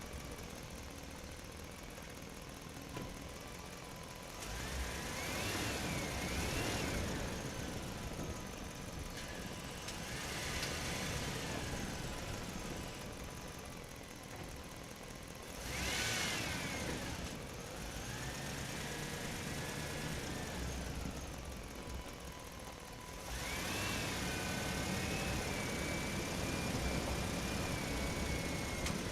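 Radio-controlled truck being driven in about five bursts: a whine that rises and falls in pitch with the throttle, over a steady hum.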